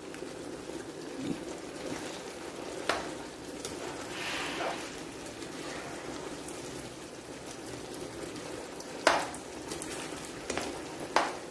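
Thick chicken shashlik gravy simmering and bubbling in a non-stick frying pan, stirred with a plastic spatula. Three sharp taps of the spatula against the pan: about three seconds in, and twice near the end.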